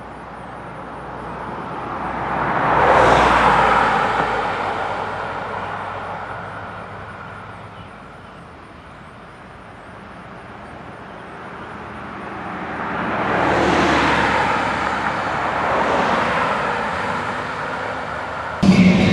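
Two vehicles passing by on the road, each a whoosh of engine and tyre noise that swells and fades, the first about three seconds in and the second about thirteen seconds in. Just before the end the sound cuts abruptly to a louder, lower rumble.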